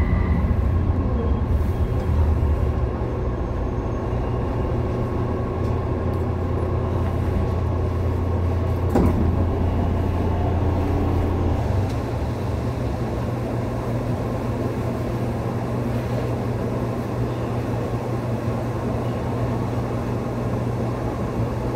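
Rubber-tyred Busan Metro Line 4 light-metro train in a tunnel: steady running noise with a strong low hum that stops about twelve seconds in, after which only a steady noise remains. A single sharp click sounds about nine seconds in.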